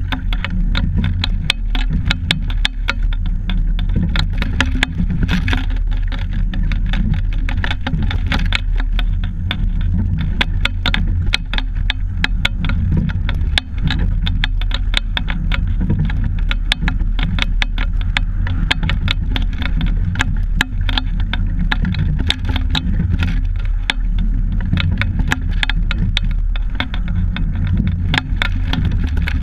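Steady rumble of wind and water on a camera fixed to a double scull under way, with a dense, constant rattle of sharp clicks from the boat and mount as the crew rows.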